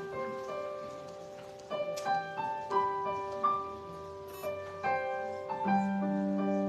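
Piano playing a melody of single notes over a held lower note, with a low chord struck near the end and left ringing.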